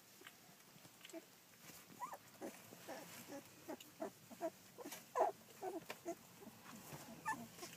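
Two-week-old rough collie puppies squeaking and grunting: many short, faint calls, busiest from about two seconds in to six seconds in.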